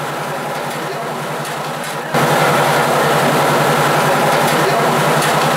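Electric chocolate mill running steadily with an even, pulsing hum as it grinds cacao fed into its hopper. It becomes clearly louder about two seconds in.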